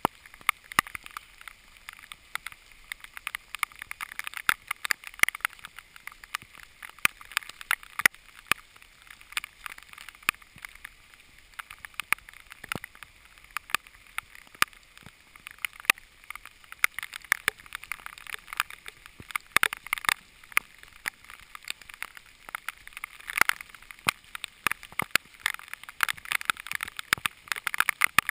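Heavy rain, with drops striking the camera close up as irregular sharp taps, several a second, over a steady hiss.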